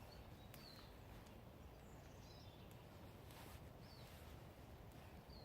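Quiet woodland ambience: a bird chirps briefly about four times over a low steady rumble, with a few faint clicks.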